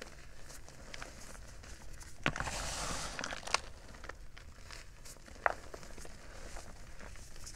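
Hands squeezing and crumbling powdery gym chalk: soft crunching and crackling. There is a denser gritty rustle from about two to three and a half seconds in, and a few sharp single crunches, the clearest near the middle and about five and a half seconds in.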